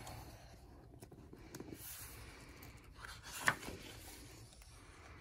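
Pages of a picture book being turned by hand: faint paper rustling and sliding, with one brief soft knock about three and a half seconds in.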